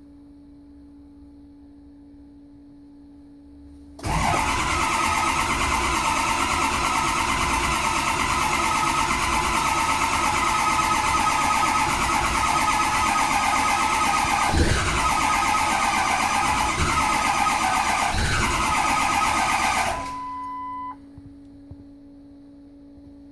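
2003 Ford F-250's 6.0 Power Stroke V8 diesel cranking on the starter for about sixteen seconds without catching: a crank-no-start. A faint steady hum, which the owner takes for the fuel pump with the key on, is heard before and after the cranking, and a short beep sounds just as the cranking stops.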